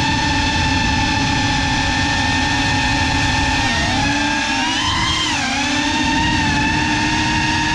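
Brushless motors and propellers of a Cinelog 35 FPV cinewhoop drone whining steadily in flight. The pitch rises and then falls back between about four and five and a half seconds in, as the throttle changes through a turn.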